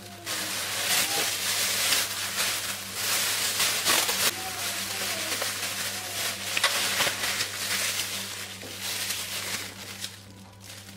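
A thin plastic refrigerator bag rustling and crinkling in irregular bursts as a whole raw chicken is slipped into it and the bag is gathered and lifted, over a steady low hum.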